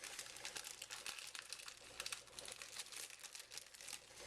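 Plastic wrapper of an individually wrapped thin cheddar cheese slice crinkling and crackling as it is handled and peeled open, a dense run of small crackles.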